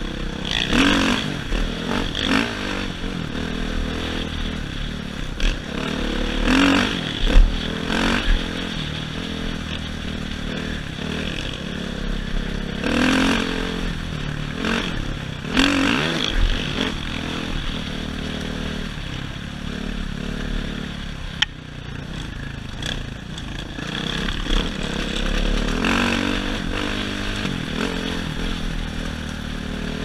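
Dirt bike engine running hard along a trail, revving up and easing off again and again as the rider works the throttle.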